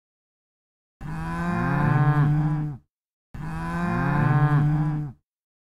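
A cow mooing twice: the same long, steady moo, each almost two seconds long, played twice with a short gap between.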